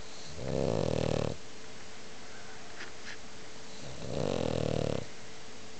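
French bulldog snoring loudly: two snores about three seconds apart, each lasting about a second with a rapid fluttering rattle.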